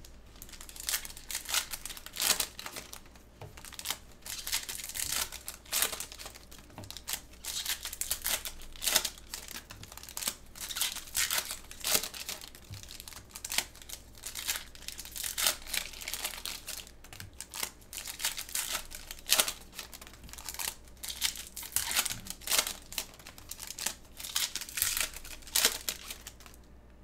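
Plastic wrapping of football trading-card boxes and packs being torn open and crinkled by hand, a long run of irregular rustling and ripping.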